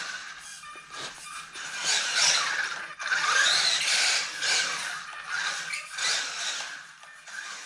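Maverick ION DT 1/18 electric RC truck running in repeated bursts of throttle, its motor and drivetrain whining and its tyres squealing, rising and falling every second or so.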